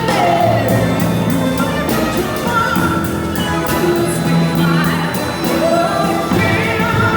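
A symphonic jazz orchestra playing a slow blues number live, with sustained chords under a lead line that slides up and down in pitch.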